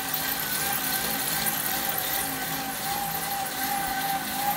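Road bike pedalled on an indoor trainer, whirring with a steady high whine and a low hum that swells and fades.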